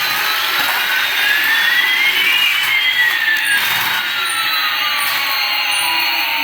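Battery toy's whirring engine sound: a steady hiss with one whine rising and another falling in pitch, crossing about halfway through.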